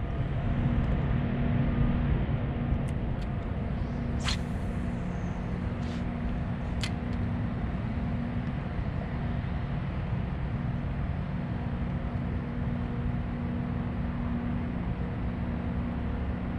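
Bow-mounted electric trolling motor running with a steady low hum. Two sharp clicks come about four and seven seconds in.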